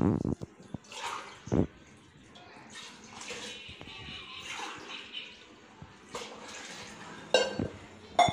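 Water poured from a steel tumbler into a large aluminium pot of chicken masala, several splashing pours one after another as the water is measured in tumbler by tumbler. A few sharp metal knocks of the steel vessels come near the start, about a second and a half in, and near the end.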